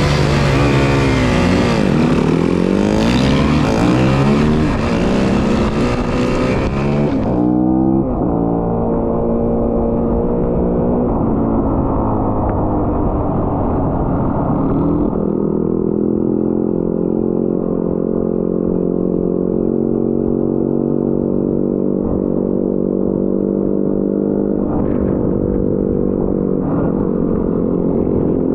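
Off-road motorcycle engine, its pitch rising and falling as it is revved and ridden. About seven seconds in the sound turns duller, and the engine settles into a steadier note for the rest of the time.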